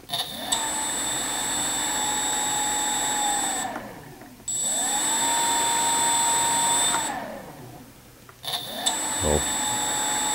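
AX2814 brushless motor spinning a small two-blade plastic propeller, driven by a 40 A ESC, run up three times in short bursts. Each time the whine climbs quickly, holds steady for about three seconds, then winds down. A thin high steady tone sounds over each run.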